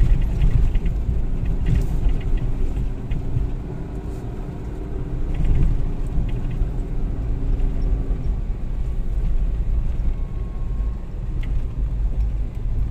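Off-road 4x4 vehicle driving: a steady low rumble of engine and tyres, with an engine hum that drops away about eight seconds in.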